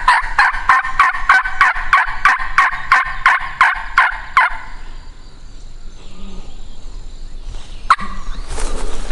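Hunter's turkey call run through a long, fast, even series of hen-turkey notes, about four a second, to call up a gobbler; it stops about four and a half seconds in. A sharp click follows near the end, then rustling.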